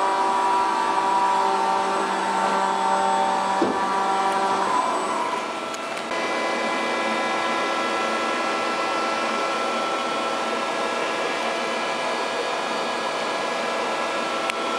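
FPT AREA M80 travelling column milling machine running: a steady whine of several tones that fades out about five seconds in. About a second later a different steady whine and hum starts up and carries on.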